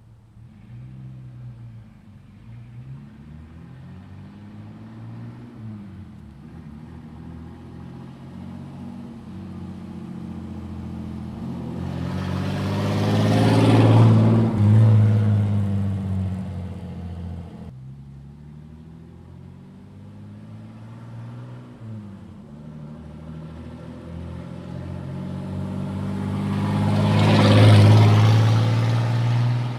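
Jeep Cherokee XJ's 4.0-litre straight-six running through a straight-pipe exhaust with the muffler deleted, a deep low-rpm note like a military truck. It swells to a loud peak and fades away twice, as with the Jeep driving past.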